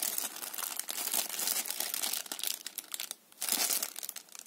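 Thin clear plastic bags crinkling as the cables sealed in them are handled and turned over. The crackling pauses briefly about three seconds in, then starts again.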